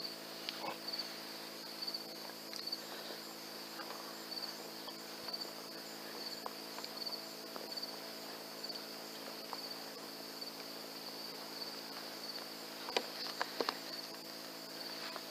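Crickets chirping steadily, about two chirps a second, over a faint steady low hum. A few sharp clicks come near the end.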